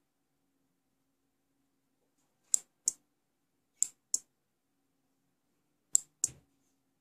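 A 5 V relay module clicking as it switches a light bulb on and off, triggered by a magnet held near a Hall-effect sensor. There are three pairs of sharp clicks, each pair about a third of a second apart, coming every second or two.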